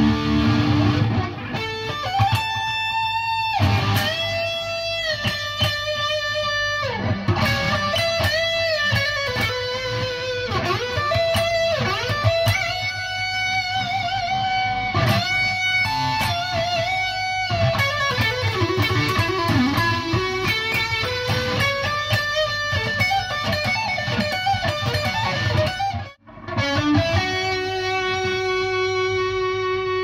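Electric guitar, a Mayones Hydra Elite, played through a PRS MT15 tube amp head with 5881 power tubes. It plays a single-note lead line of held, bent and wavering notes mixed with quick runs. The playing breaks off for a moment near the end, then carries on.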